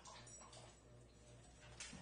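Faint scraping of a spoon stirring food in a frying pan, with a short clink of the spoon against the pan near the end, over a low pulsing hum.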